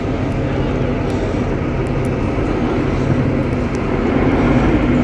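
A steady, low engine rumble with a faint hum, swelling slightly near the end.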